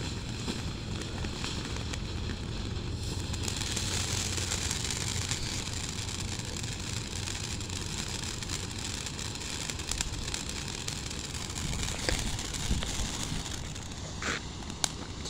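Phantom Vibrant Voltage firework fountain burning on the ground: a steady hiss of spraying sparks laced with fine crackling, growing sharper about four seconds in.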